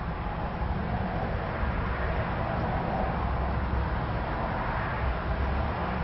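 Hunter Passport II ceiling fan, dated 2000, running steadily at speed, its spinning blades giving a continuous whoosh of moving air with a low rumble underneath.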